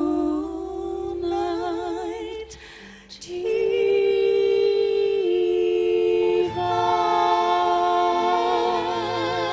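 Two women singing a slow worship song in harmony, holding long notes with vibrato. The singing breaks off briefly about three seconds in, then resumes.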